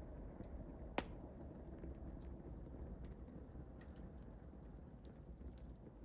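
Wood fire in a fireplace crackling, with small scattered pops over a low steady rumble of flame and one sharper, louder pop about a second in.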